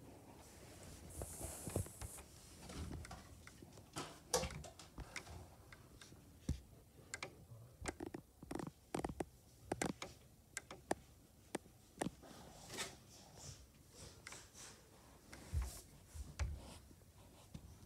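Handling noise: scattered soft knocks, clicks and fabric rustles as a phone is shifted and tumbled against bedding, several to a second in places.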